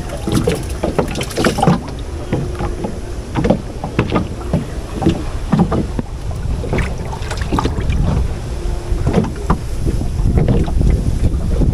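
Water hyacinth leaves rustling and crackling as hands push and pull through them, with irregular small knocks, over a low wind rumble on the microphone.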